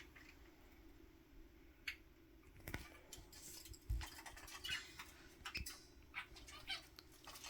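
Pet budgies making quiet scratchy chirps and chatter, with a few sharp beak or toy clicks.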